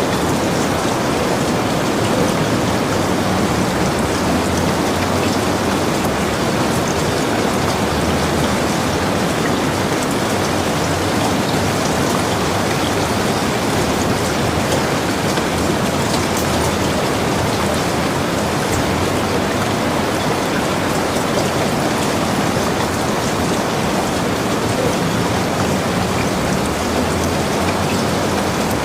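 Steady rain falling on surfaces, a dense even hiss with fine scattered drop ticks.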